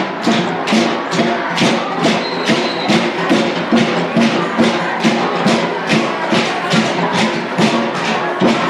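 Music with a steady percussion beat, about two and a half strikes a second, over crowd noise.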